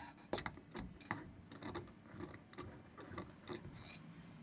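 Faint, irregular light clicks and ticks as a flathead screwdriver turns the centre screw back into the centre shaft of a Barton sailing winch.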